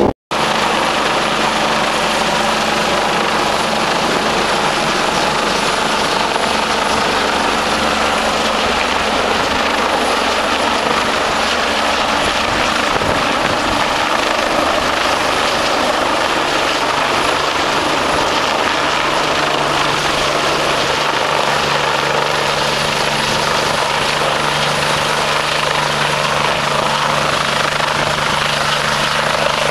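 Air-ambulance helicopter hovering low and coming down to land, its engines and rotor running steadily and loud.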